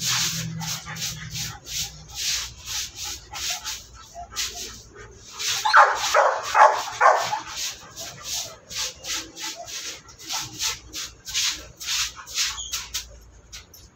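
Rhythmic brush-scrubbing strokes, about two or three a second, fading out near the end. A dog barks three or four times about six seconds in; these barks are the loudest part.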